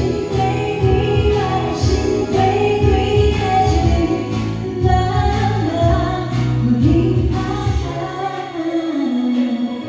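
A woman singing live into a handheld microphone over backing music with a steady beat. About eight seconds in, the bass and drums drop out, leaving lighter accompaniment.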